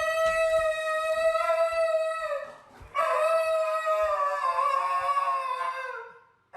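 A dog howling: one long howl ending about two and a half seconds in, then a second long howl that drops in pitch and fades near the end.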